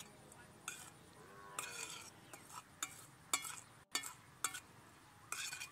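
A metal spoon stirring minced pork and chili flakes in a stainless steel bowl, scraping and clinking against the bowl about half a dozen times at irregular intervals.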